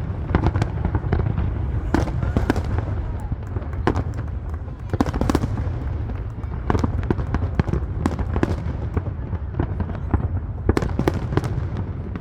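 Fireworks display: a rapid, irregular string of sharp bangs and crackles over a steady low rumble.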